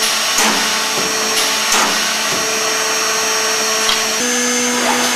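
Several high-speed electric spindles of an Accu-Systems VX multi-spindle CNC boring and routing machine running with a steady whine as they drill into a wooden panel, with a few short, sharp cutting sounds as bits plunge. The hum shifts in pitch about four seconds in.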